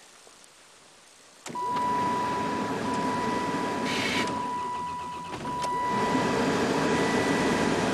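1995 Chrysler Intrepid's 3.3-litre V6 cold-starting after sitting a couple of days in the cold: it fires suddenly about a second and a half in and keeps running, heard from inside the cabin. A steady high-pitched tone sounds over the engine for about five seconds.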